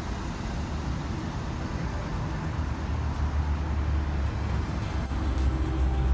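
Steady low rumble of road traffic outdoors, getting a little louder toward the end.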